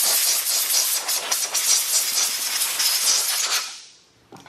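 Compressed air from a shop air hose's blow gun, blasting in a loud hiss as it blows off a chainsaw, then cutting off about three and a half seconds in.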